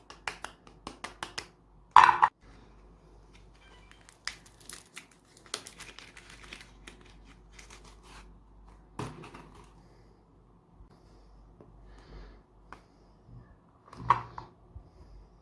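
Crinkling and crackling of something being crushed, with scattered sharp clicks and a short, louder crunch about two seconds in and again near the end.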